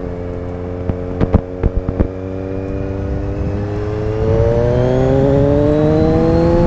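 Kawasaki Z1000 inline-four engine running at highway speed through its original exhaust with the pre-muffler box and baffle cores removed, then pulling harder from about four seconds in, the revs climbing steadily. A few sharp knocks come about a second in.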